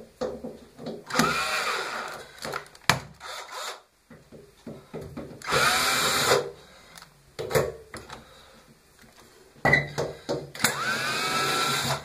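Cordless drill-driver running in three short bursts as it backs screws out of a washing machine's lower front panel, with a few clicks of the tool and screws in between.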